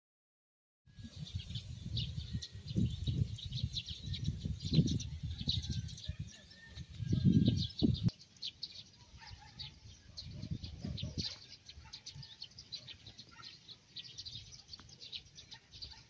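Outdoor field ambience: many small birds chirping, with irregular low gusts of wind on the microphone, heavier in the first half.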